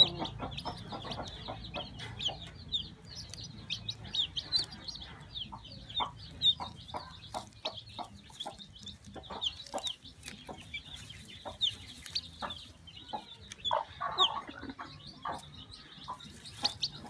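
Chick peeping: a run of many short, high peeps in quick succession, with scattered sharp clicks among them.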